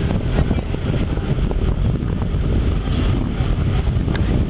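Wind buffeting the microphone over a steady low rumble on the open deck of a car ferry.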